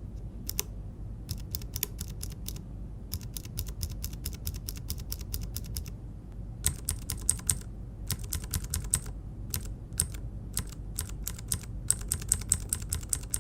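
Mechanical keyboard with clicky switches being typed on: a fast run of sharp clicks, with a brief pause about six seconds in.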